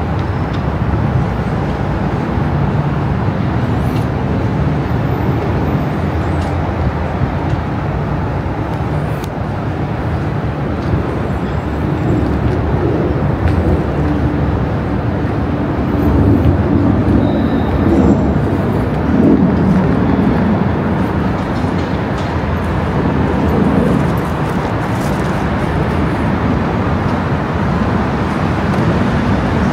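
Road traffic: steady engine and tyre noise from passing vehicles, with a low hum of engines. It gets louder for several seconds past the middle as a vehicle goes by.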